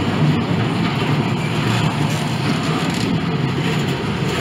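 Double-stack intermodal freight train of container well cars rolling past: steady rumble of steel wheels on rail.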